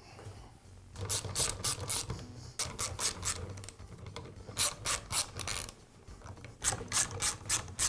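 Small ratchet wrench clicking in short runs of rapid clicks as it turns out the cap screws on a Bostitch roofing nailer.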